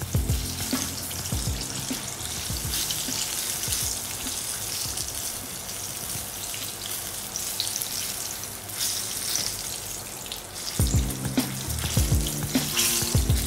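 Hot oil sizzling and crackling steadily around batter-coated chicken pieces deep-frying in an iron kadai. Background music plays over it at the start and again near the end.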